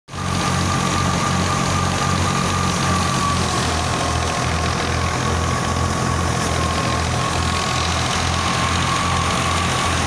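Tractor-driven wheat thresher running steadily, powered through a PTO shaft. A low throb pulses about twice a second under a steady high whine.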